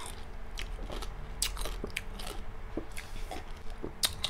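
Close-miked mouth sounds of chewing crispy fried pork crackling (chicharon bagnet): irregular small crunches and wet clicks throughout.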